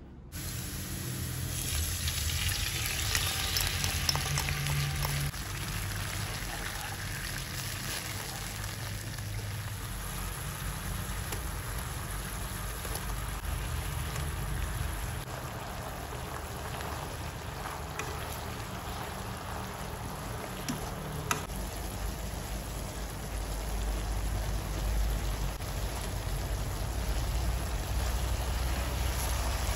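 Fried eggplant slices sizzling and bubbling in a fish-sauce, garlic and chili sauce in a nonstick frying pan, with utensils stirring. Two sharp taps on the pan come later on.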